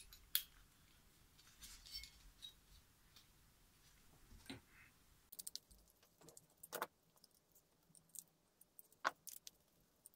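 Faint, scattered clicks and light metal taps of short bolts being driven into the clutch housing of a 1/5-scale Baja two-stroke engine with a screwdriver, the sharpest click about nine seconds in.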